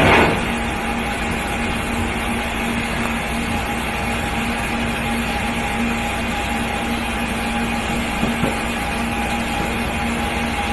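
Raccoon Fireworks 60-second green flame effect lighting with a sudden burst, then burning with a steady rushing hiss.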